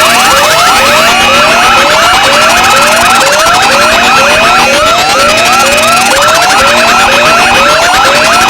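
Several electronic alarm and siren tones sounding together, loud and unbroken: a rising whoop repeating about twice a second, a faster warble above it, and a steady high tone that cuts out briefly every two seconds or so.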